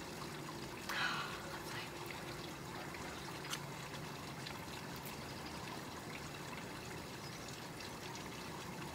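A sip of hot tea slurped from a ceramic mug about a second in, followed by a steady low hum of room tone and one faint click.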